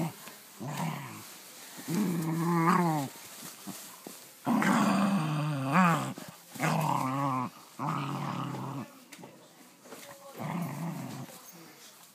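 A puggle growling and grumbling at a toy in a series of short pitched bouts, some with a quick warble, a sound likened to a gremlin.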